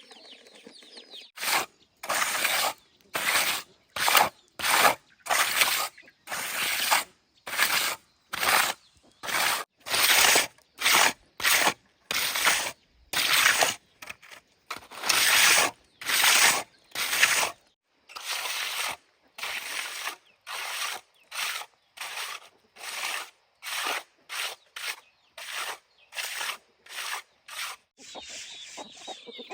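Repeated rhythmic scraping or rubbing strokes, about one to two a second, each stroke short and loud with brief pauses between, starting a second or two in and stopping near the end.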